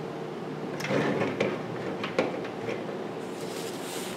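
White wrapping paper being handled and unfolded: a few light knocks and clicks as things are set on the table, then a rustle of paper from about three seconds in, over a steady low hum.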